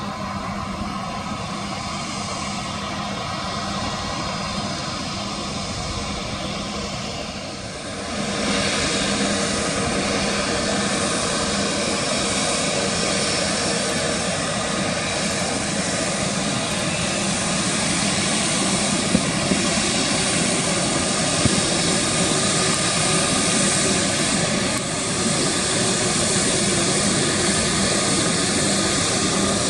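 Airliner's jet engines running, growing louder about eight seconds in as thrust comes up for takeoff, then holding steady at full power.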